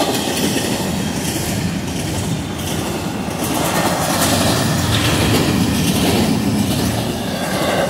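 Empty double-stack well cars of a freight train rolling past at speed: a steady rumble of steel wheels on the rails, growing somewhat louder about halfway through.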